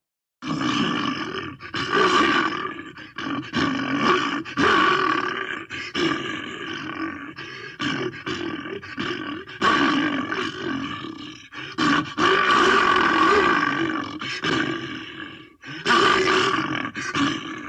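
Home-made vocal creature sound effects: a voice making a string of rough, pitched roars and grunts with short breaks between them, starting about half a second in.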